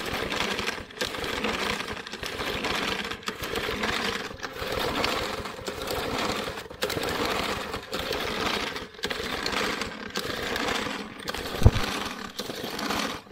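Lawn mower engine being pull-started over and over, about one pull a second, turning over with a rattle but not catching. A single heavy thump near the end.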